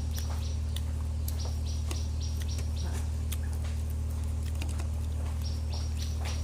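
A steady low hum under runs of short, quick high chirps, about four a second, with scattered clicks.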